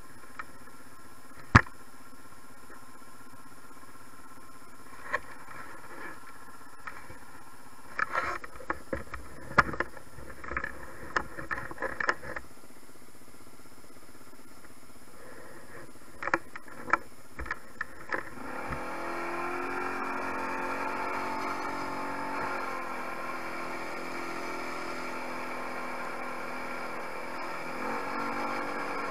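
Tao 250 quad ATV engine running steadily and quietly, with scattered clicks and knocks from the rider handling the controls. About eighteen seconds in the engine gets louder and runs under load as the quad rides off.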